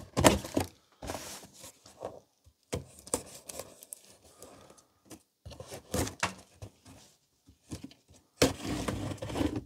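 A knife slicing through packing tape on a cardboard box, with scattered scrapes, taps and knocks of the cardboard being handled. A louder stretch of scraping near the end.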